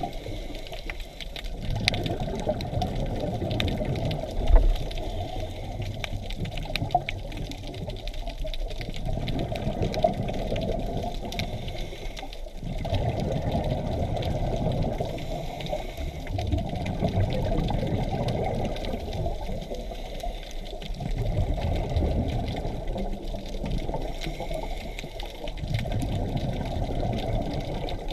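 A scuba diver's regulator breathing underwater: bubbling, gurgling exhalations alternating with quieter inhalations, swelling and fading every few seconds, muffled. One short knock about four and a half seconds in.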